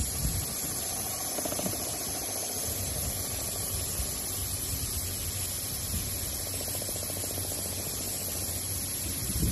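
Sanding machine working the surface of aluminum cookware: a steady hiss with a low hum underneath, unbroken throughout.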